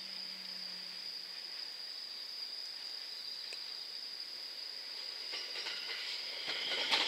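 Steady high-pitched insect chorus, crickets singing in the trackside grass at night. From about five seconds in, the running noise of the approaching JR West 227 series electric train builds, with rail clicks, and grows louder toward the end.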